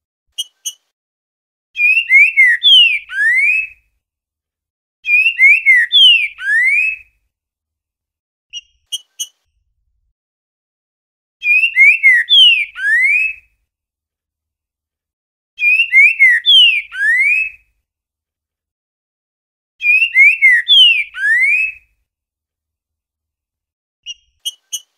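Green-winged saltator (trinca-ferro) singing its 'boiadeiro' song: five phrases of slurred whistles, each about two seconds long and ending on a rising note, with pauses between them. Short sharp call notes come in three of the gaps.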